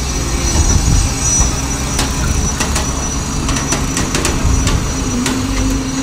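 Engine of a concrete mixer truck running steadily with a low hum, with a scatter of short sharp knocks in the middle.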